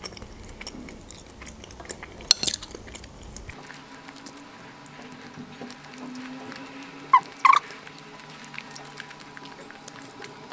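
Close-miked chewing of dried fish, with small crackles as the fish is picked apart by hand. There is a sharp click a couple of seconds in and two short squeaky chirps a little past the middle.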